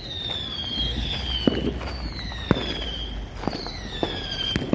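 Fireworks going off: several overlapping high whistles that each fall in pitch, mixed with a handful of sharp bangs about a second apart.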